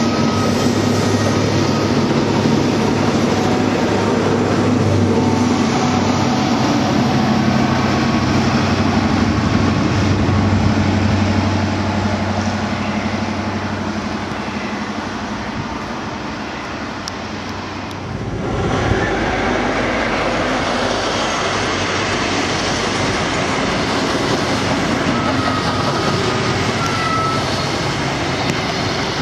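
High Speed Train sets passing at speed: a steady rumble of wheels on rail with a low diesel drone that fades away. About eighteen seconds in it changes abruptly to a second train rushing past close by.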